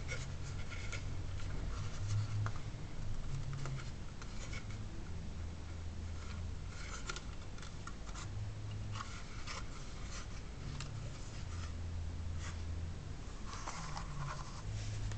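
Hands handling a small plastic Wi-Fi router: scattered light clicks, scrapes and rubbing as it is turned over, its antennas are folded down and it is set down on a table.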